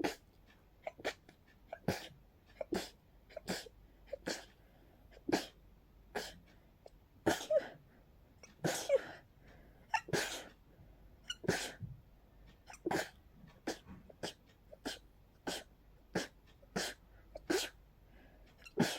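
A person's rapid sneezing fit set off by pollen: short sneezes in quick succession, more than one a second, with a few longer, louder ones around the middle.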